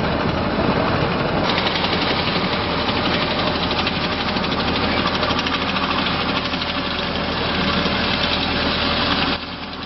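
M1 Abrams-based Assault Breacher Vehicle with its gas-turbine engine, running and driving on its tracks. It is a steady heavy-vehicle noise with a fine, fast rattle, and it drops off suddenly near the end.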